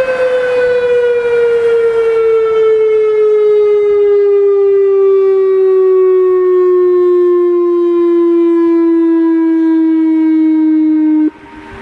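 Whelen WPS 3016 electronic outdoor warning siren sounding its test tone, a loud single tone whose pitch glides slowly downward before cutting off abruptly near the end. A fainter tone carries on after the cutoff.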